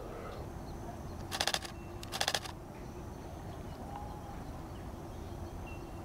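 Canon R7 camera shutter firing two short rapid bursts of clicks, about a second apart, in high-speed continuous shooting, over faint outdoor background noise.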